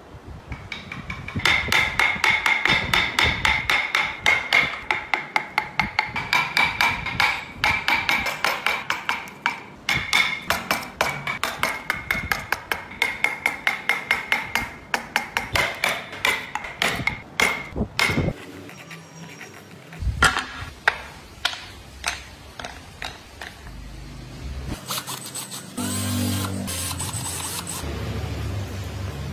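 A steel wood chisel being struck into pine with rapid blows, several a second, each with a short metallic ring. The blows stop a little past halfway, and scattered knocks follow.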